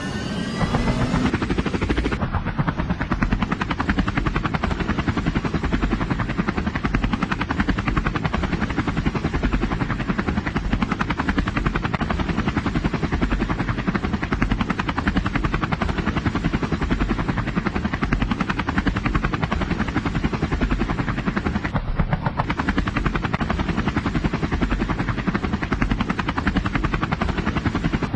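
Helicopter rotor sound, rising in pitch as it spins up over the first second or so, then a steady fast chop.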